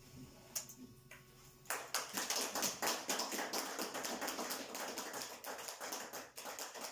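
Audience applauding: a couple of lone claps, then steady clapping from about two seconds in.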